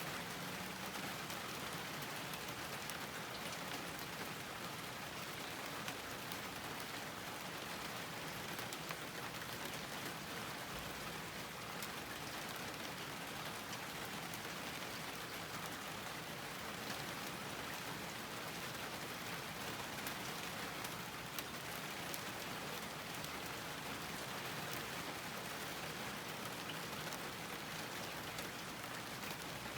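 Steady rain falling on a garden, an even hiss with many small drop taps and now and then a louder drip.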